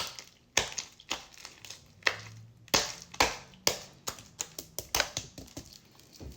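Freshly made slime being squeezed and pulled apart by hand, giving a string of sharp, sticky clicks and pops at irregular intervals.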